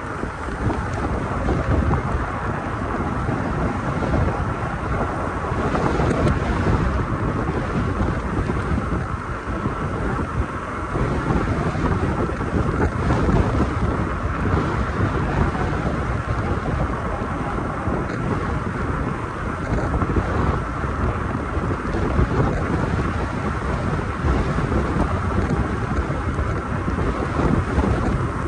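Wind rushing over the microphone of a moving e-bike, a steady rumble that swells and eases every few seconds.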